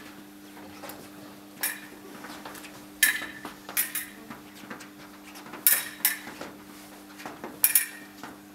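Fencing foils striking each other: several sharp metallic clinks, some in quick pairs, spread across the bout's exchanges.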